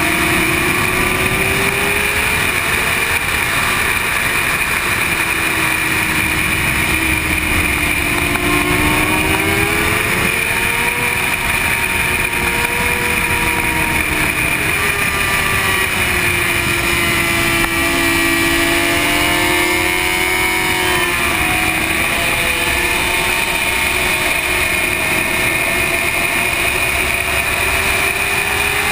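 Sport motorcycle engine heard from on board at track speed, its pitch rising and falling with the throttle through the corners, under a heavy rush of wind noise.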